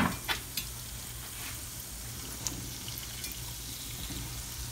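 Hot oil sizzling steadily around yeast-dough fritters frying in a pan, with a few light clicks of metal forks against the pan as the fritters are turned.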